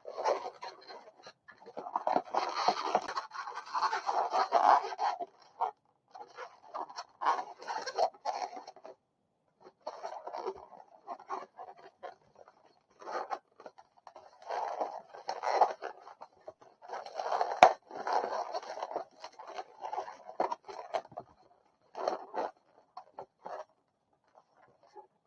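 Latex modelling balloons being twisted and folded by hand into a rabbit, the inflated balloons rubbing against each other in irregular bursts with short pauses. There is a single sharp click about two-thirds of the way through.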